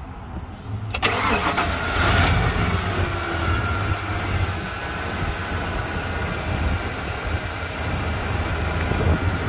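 Ford 5.8-litre (351 Windsor) V8 in a 1994 F-150 starting about a second in, running loudest for a moment just after it catches, then settling into a steady idle.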